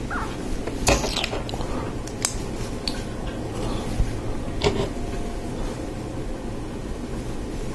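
Plastic LEGO bricks being handled and pressed together, giving a few sharp separate clicks with light plastic rattling between them.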